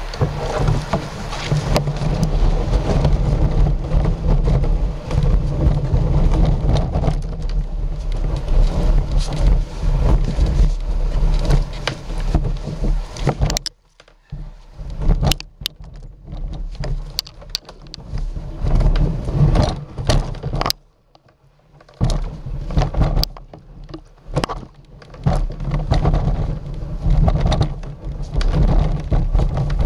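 Kayak hull being dragged over dirt and grass by its bow handle: a rough scraping rumble with knocks and bumps, stopping briefly twice midway.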